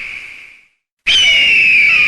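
Bird of prey screaming: the tail of one long, hoarse, slightly falling scream fades out, then after a brief gap an identical scream begins about halfway through.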